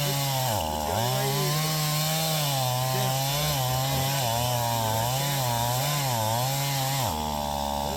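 Gas chainsaw running at high revs while cutting a downed tree, its engine pitch wavering and dipping as the chain loads in the wood. It drops off throttle briefly about a second in, and again near the end.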